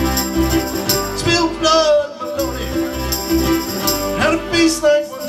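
Live folk band playing a passage between sung lines: piano accordion, acoustic guitar and ukuleles over a steady beat, with a tambourine jingling.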